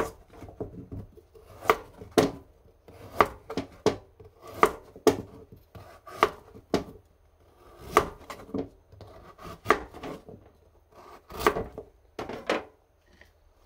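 Kitchen knife cutting a raw carrot into large chunks on a cutting board: a string of sharp, irregular knocks as the blade goes through and strikes the board, roughly one every half second to second, stopping about a second before the end.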